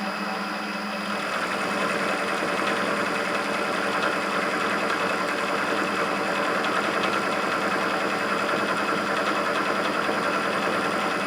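Clausing 8520 milling machine running with its cutter milling a flat on a T-nut. The cutting sound comes in about a second in and then holds steady, with a light rapid ticking over the motor hum.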